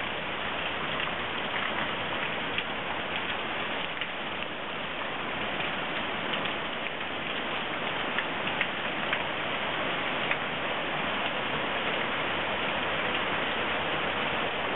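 Heavy hail falling steadily on a wooden deck and pouring off an overflowing rain gutter: a dense, even hiss with many scattered sharp ticks of individual hailstones striking.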